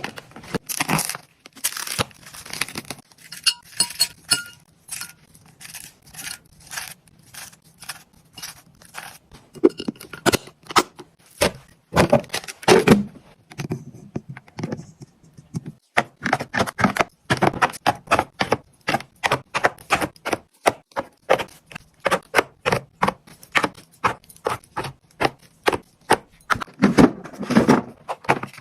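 Plastic fridge storage boxes and bags being handled: a dense run of clicks, knocks and rustles, with a short quieter spell a little past the middle.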